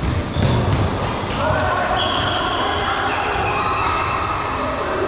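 Dodgeballs bouncing and striking the hard floor of an indoor court during a dodgeball game, with players' shouts and calls.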